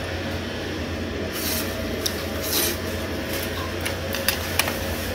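Mukbang eating sounds: a couple of short noisy slurps of japchae glass noodles and a few sharp clicks of chopsticks against the dish, over a steady low room hum.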